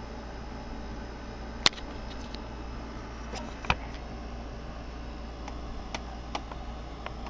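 A few short, sharp clicks and taps, the loudest about a second and a half in, over a steady low hum and hiss. They come from hands working the hinged metal face cover of a Singer 401A sewing machine open and handling its casing. The machine's motor is not running.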